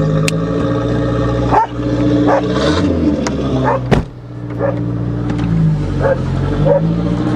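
Turbo Dodge Aries wagon's engine running steadily while towing a loaded trailer, its note shifting about two to three seconds in. A dog yips several times in the second half.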